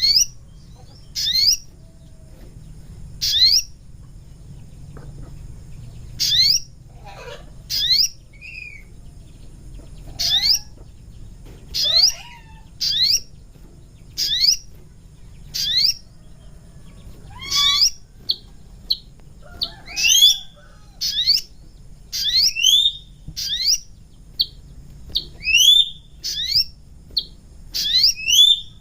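Sogon bird calling: a series of short, sharp rising chirps, about one a second at first and coming faster and sometimes doubled in the second half, played as a lure call. A faint low hum lies under it.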